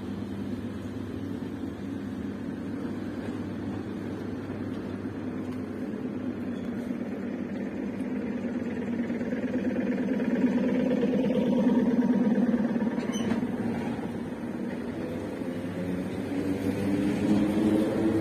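ER9M electric multiple unit pulling away from the platform and gathering speed past the listener. Its running noise grows louder about two-thirds of the way through, and a whine climbs in pitch near the end.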